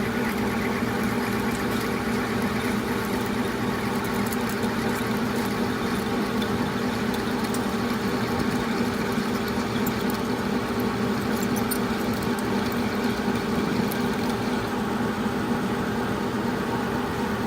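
Metal lathe running steadily while turning an aluminum part, a constant motor and spindle hum with a few faint high ticks in the middle.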